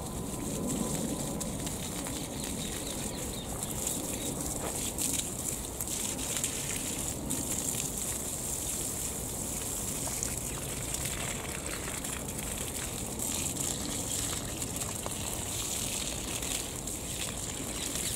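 Watering can pouring a steady stream of water onto sweetcorn plants and the soil, a continuous splashing hiss.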